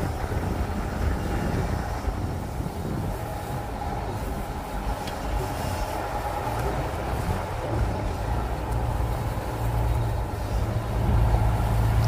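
2023 GMC Sierra Denali rolling slowly, with a low rumble from the drivetrain and tyres that grows louder near the end, and a faint knock or two from the rear. This is the rear clanking that the owner suspects comes from the rear leaf springs, which have a gap between them and are shifting against each other.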